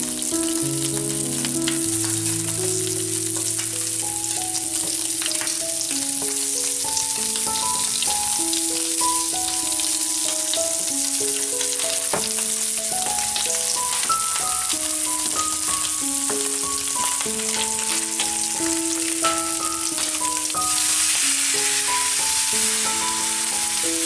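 Shrimp and pork pieces sizzling in hot oil in a frying pan, a steady hiss that grows a little louder about three seconds before the end. A simple background tune of held notes plays over it.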